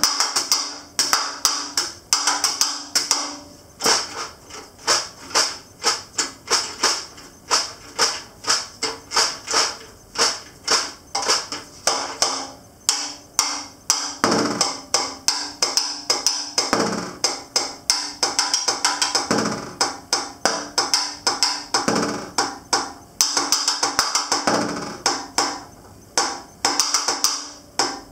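Snare drum played with wooden sticks: a solo of sharp, rhythmic strokes, accents and short rolls, the drum head ringing briefly after hits.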